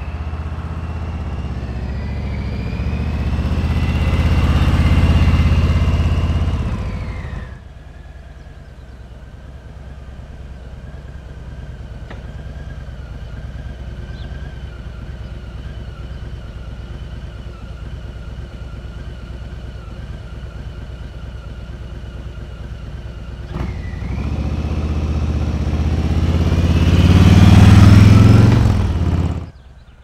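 Harley-Davidson V-twin motorcycle riding by, its engine loud for the first several seconds with the note rising as it pulls away. It then drops suddenly to a quieter, steady running sound. About six seconds before the end it swells again to its loudest and cuts off abruptly.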